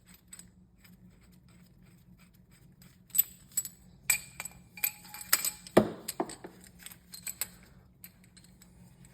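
Steel parts of a bearing splitter set and its nuts and bolts clinking and knocking as they are handled and fitted. A run of sharp separate clinks starts about three seconds in, with one heavier knock a little past the middle.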